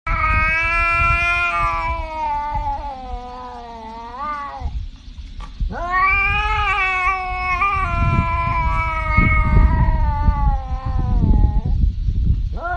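A tabby cat yowling in long, drawn-out calls. The first lasts about four and a half seconds and bends upward at its end; after a short pause a second runs about six seconds; a third begins just at the end. A low rumbling noise runs underneath.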